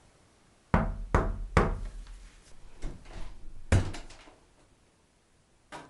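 Three quick knocks on a door, then two more close together about three seconds in.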